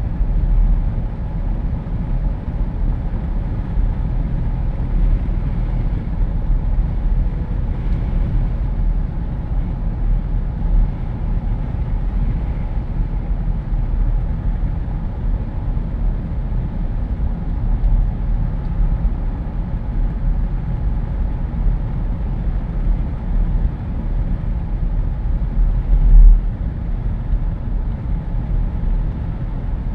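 Jeep Wrangler driving with the windows down: steady low rush of wind buffeting through the open cabin mixed with road noise, with one brief louder low gust or bump near the end.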